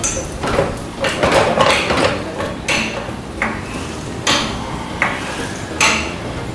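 Pittsburgh hydraulic floor jack being pumped with its long handle to raise a car, its metal handle socket and linkage clanking with each stroke, about one clank a second.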